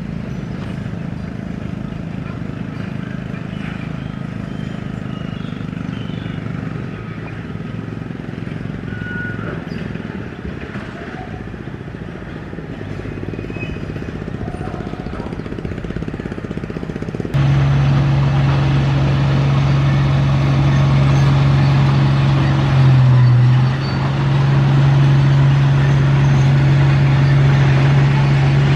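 Diesel engine of heavy road-construction machinery running at work, a low steady rumble. About two thirds of the way through it switches abruptly to a louder, steadier engine drone that dips briefly in pitch a few seconds later.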